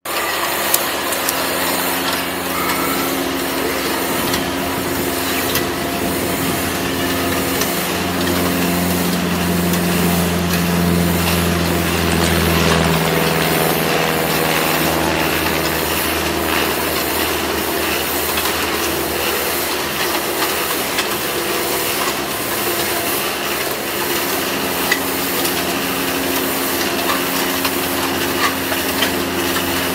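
Concrete mixer running steadily, its motor and gearbox giving a continuous hum with scattered clicks and knocks. The hum swells and shifts between about 8 and 13 seconds in.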